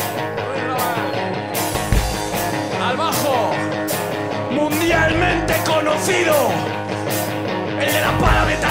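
Live rock band playing an instrumental passage: electric guitar with bent notes over bass, a second guitar and drums, with steady cymbal hits and heavy drum accents about 2, 5 and 8 seconds in.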